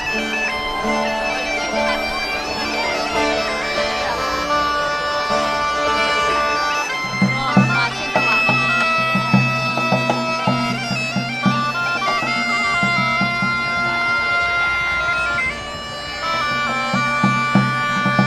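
Bagpipes playing a folk melody over a steady drone. About seven seconds in, drums join with a regular beat.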